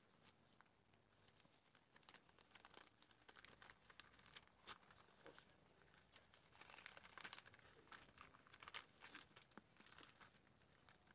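Near silence with faint, scattered crinkling and clicking of paper being handled, a little busier in the middle.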